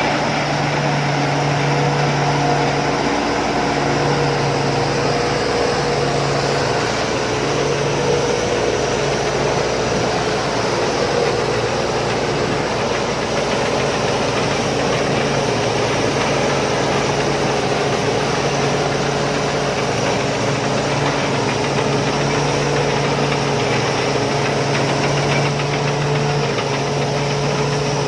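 Combine harvester engine running steadily, with a low hum that drops out and returns every second or two.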